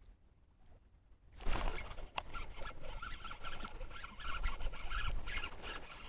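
Spinning reel being cranked with a fish on the line: a whirring with quick ticks that starts suddenly about one and a half seconds in.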